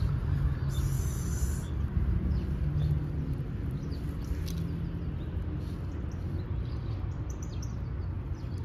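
Outdoor ambience: a steady low rumble with faint, scattered bird chirps, and a short hiss about a second in.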